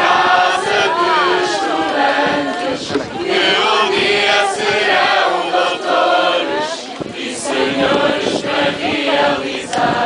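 A student tuna's mixed choir of men's and women's voices singing a song together in a loud, continuous chorus, accompanied by a strummed classical guitar.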